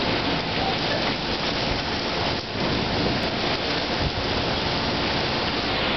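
Dust-storm wind rushing steadily and buffeting the microphone with irregular low gusts.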